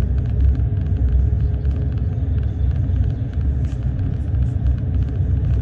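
Bus in motion heard from inside the cabin: a steady low rumble of the ride, with a faint steady whine in the first few seconds.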